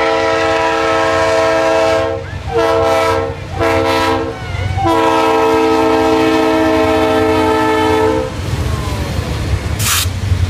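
Diesel freight locomotive's multi-tone air horn sounding the grade-crossing signal: a long blast, two short ones, then a final long one that stops about 8 seconds in. Beneath it runs the steady low rumble of the passing locomotives, with a brief hiss near the end.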